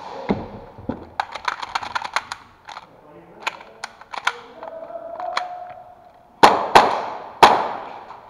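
Airsoft guns firing: a rapid string of sharp shots about a second in, then scattered single shots. Near the end come three much louder bangs that echo in the hall.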